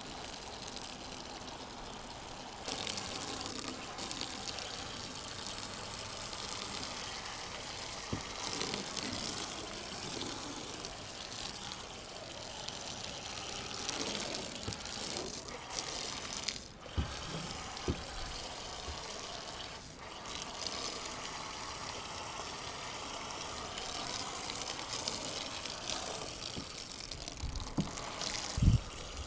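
Hose-fed soap sprayer (carwash foam cannon) spraying a bleach and dish-soap mix onto a boat hull: a steady hiss of spray at fairly low water pressure. A short thump near the end.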